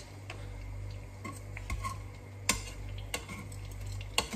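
Metal kitchen tongs clinking against a frying pan, a handful of sharp separate clicks with the loudest about two and a half seconds in and another near the end, over a steady low hum.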